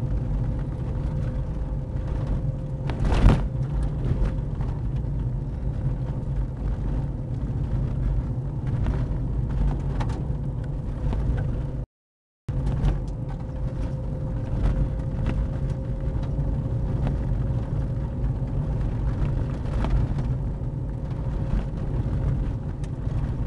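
Car driving along a rough gravel track, heard from inside the cabin: a steady low rumble of tyres and engine with a thin steady tone over it. There is one sharp knock about three seconds in, and the sound cuts out completely for half a second about halfway.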